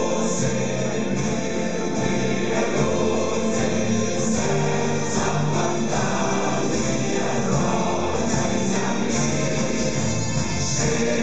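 Amplified music played through a stage sound system, with a choir singing in long held notes.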